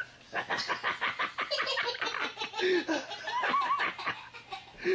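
Hearty laughter: a quick, unbroken run of laughs that goes on for about four seconds, with a louder laugh right at the end.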